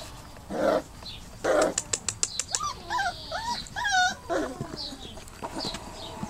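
Dobermann puppies whimpering: a string of short, whiny cries that rise and fall in pitch, coming just before the middle. Before them come two short rustling bursts and a quick patter of clicks.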